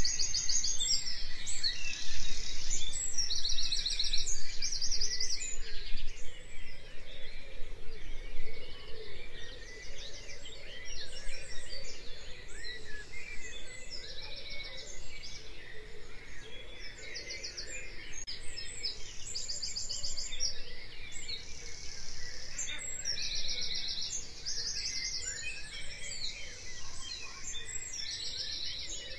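A morning chorus of many birds singing together, full of short, fast, high trills that repeat every second or two and overlap one another.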